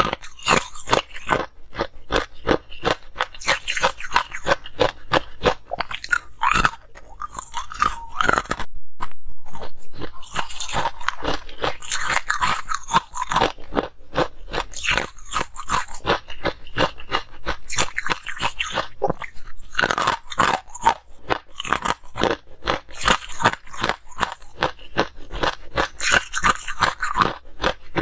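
Close-miked crunching of coloured ice cubes being bitten and chewed: a fast, continuous run of sharp cracks and grinding crunches.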